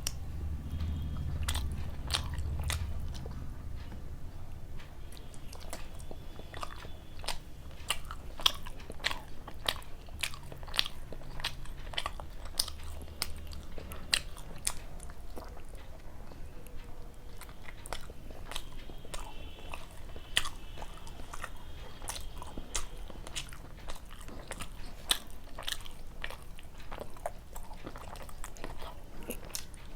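Close-miked chewing and biting of luchi with spicy chicken curry, with many sharp, irregular wet mouth clicks and crunches.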